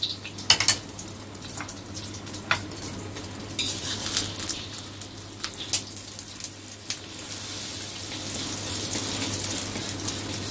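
Beaten eggs frying in hot oil in a wok, sizzling, with scattered knocks and scrapes of a plastic spatula against the wok as the egg is lifted and turned. The sizzle grows louder in the second half.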